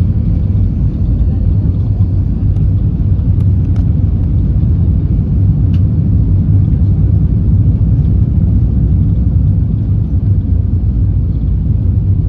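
Steady low rumble of an Airbus A320's engines and airflow heard inside the passenger cabin.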